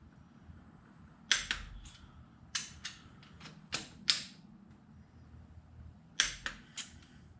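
Click-type torque wrench tightening loose cylinder head bolts: about a dozen sharp metallic clicks in a few irregular groups, from the wrench ratcheting and clicking off at its set torque.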